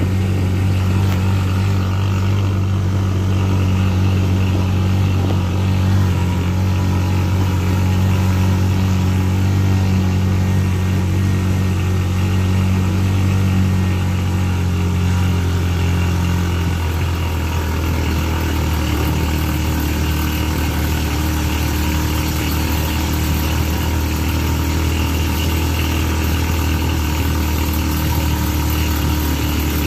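Small motor vehicle's engine running steadily, heard from on board while riding. The engine note shifts and drops a little in pitch at about the halfway point.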